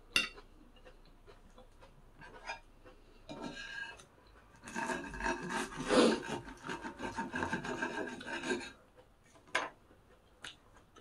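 Knife sawing back and forth through a crispy breaded pork cutlet on a plate. A rapid rasping runs for about four seconds in the middle, after a few shorter cutting strokes. Sharp cutlery clicks come at the start and twice near the end.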